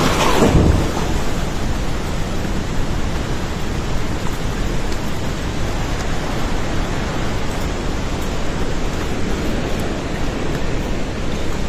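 Flash-flooding river rushing past: a loud, steady wash of churning water, a little louder in the first second and then even.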